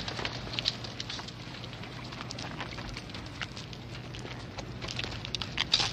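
Footsteps of several people walking on sand, heard as irregular small crunches and clicks over a steady hiss and low hum.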